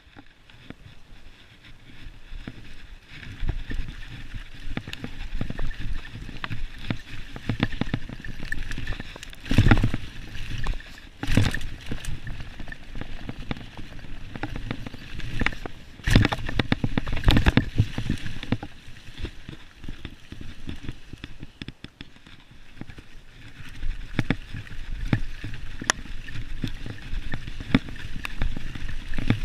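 Mountain bike riding fast down a leaf-covered dirt trail: tyres running over dirt and dry leaves, with the bike rattling and knocking over bumps. The loudest knocks come about ten, eleven and sixteen to eighteen seconds in.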